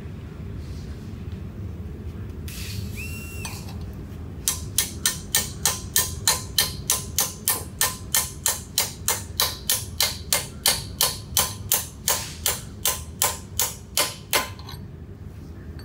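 Brass mallet tapping a driver to seat a bushing in the bore of a Mud Buddy lower unit housing: a steady train of about thirty sharp metallic strikes, about three a second, lasting roughly ten seconds, driving the bushing in until it bottoms out. A short scrape comes a few seconds before the blows start.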